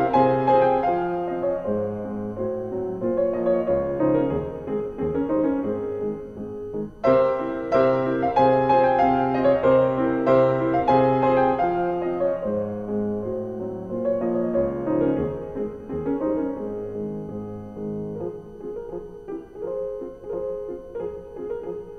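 Background piano music, with a fresh chord struck about seven seconds in and the playing growing quieter toward the end.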